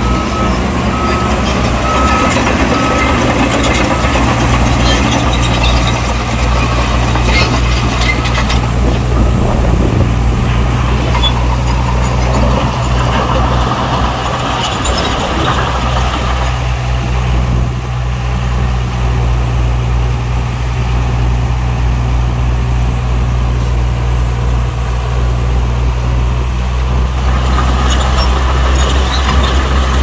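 Heavy diesel earthmoving machinery running steadily with a deep engine drone and a rough mechanical clatter over it. A reversing alarm beeps in the first couple of seconds.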